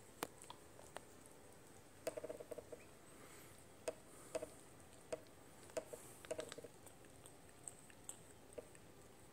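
Cat licking condensation off the side of a plastic water bottle: soft, irregular tongue clicks, some in quick runs of several licks.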